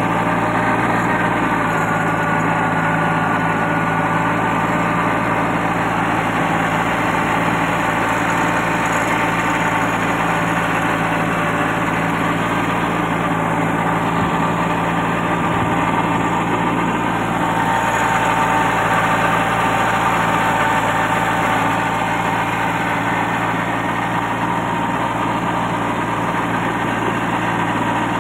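Kubota 21 hp compact tractor's diesel engine running steadily under load, pulling a rotavator that tills the soil between rows, heard up close from on the tractor.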